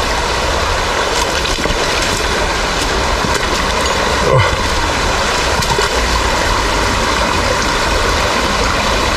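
Small rocky trout stream running over stones and a little cascade: a steady rushing and gurgling of water.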